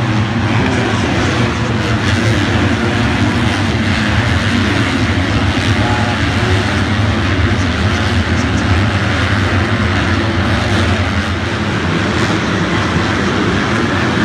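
A pack of motocross bikes racing round the dirt track, their engines blending into one loud, steady drone.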